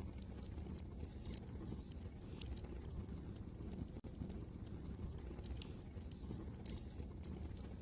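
Wood fire crackling in a fireplace, with irregular sharp snaps and pops over a steady low rumble of wind.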